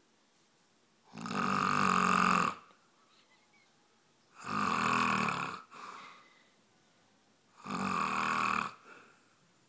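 A man snoring in his sleep: three loud snores, each a little over a second long, coming about every three seconds.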